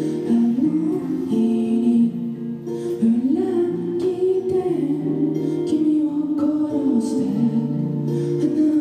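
Live acoustic guitar and voice: a singer holds long notes and glides between pitches over an acoustic guitar accompaniment.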